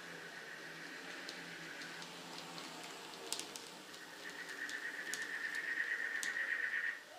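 Two N scale GP30 model diesel locomotives running on the layout track: a steady high-pitched electric motor whine that grows louder about four seconds in and drops away near the end, with a few sharp clicks from the wheels on the track.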